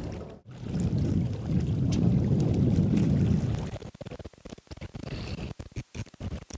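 Wind rumbling on the microphone for about three seconds, then dropping to a weaker, choppy gusting near the end.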